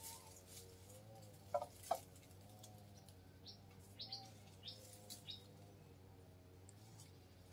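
Faint bird chirps: two short calls about a second and a half in, then a quick run of about five high, short down-slurred chirps, over a faint wavering hum.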